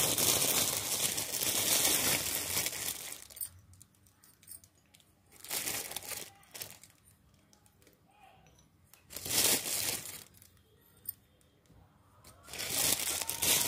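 Rustling, crinkling noise in four bursts: a long one of about three seconds at the start, then shorter ones about a second each, with quiet gaps between.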